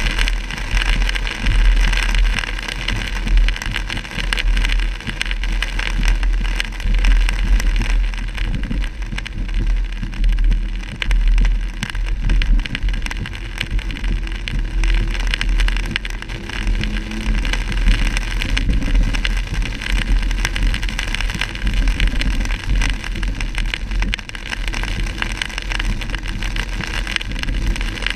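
Heavy rain pattering on a car's windshield and roof while driving, heard from inside the car, with tyres hissing on the flooded road and windshield wipers sweeping. A constant deep rumble of the moving car runs underneath.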